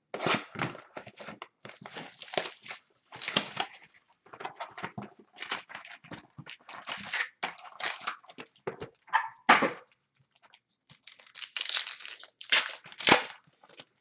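A 2016-17 Panini Totally Certified basketball card pack being torn open and its wrapper crinkled, with the cards handled: irregular crackling and rustling, easing off briefly about ten seconds in before a last loud burst of crinkling.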